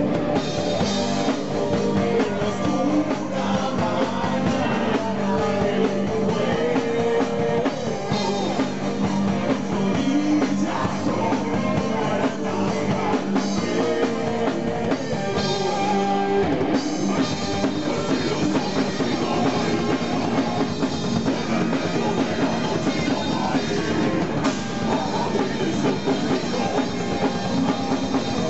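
Heavy metal band playing live: electric guitar, bass and drum kit, with a vocalist singing over them. The band plays steadily with no break.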